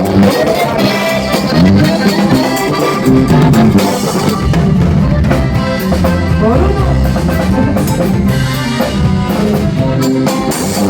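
Instrumental break in a Latin band song: drum kit and percussion with brass and strings, no singing.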